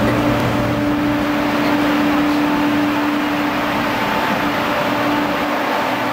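Steady drone of a standing Amtrak Acela train's onboard equipment, with a low hum that drops out about three and a half seconds in.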